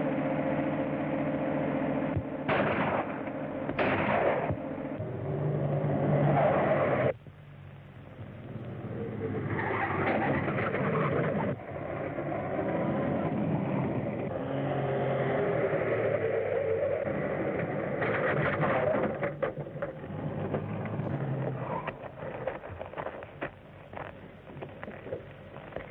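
Early-1930s automobile engines running hard during a car chase, with a sudden drop in level about seven seconds in before the engine sound builds back up.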